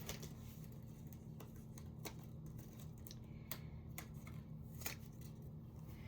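Faint, scattered clicks and light taps of paper and cardstock being handled while a ribbon piece is fitted to the back of a card label, over a steady low hum.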